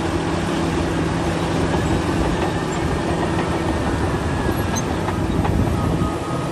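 Bulldozer's diesel engine running steadily, a low drone with a constant hum.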